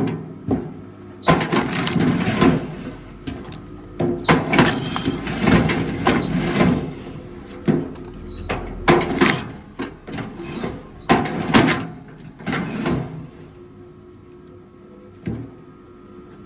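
Rail log splitter at work: irregular knocks, cracks and scraping of logs being pushed and split, with two brief high squeals about midway.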